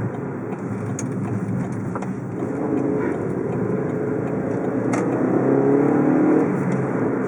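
Car engine and road noise heard while driving, with the engine note rising and growing louder as the car accelerates from about two and a half seconds in.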